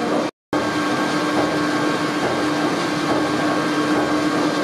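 Stationary engines running in an engine hall: a steady mechanical hum with a constant low tone. The sound cuts out for a moment just after the start.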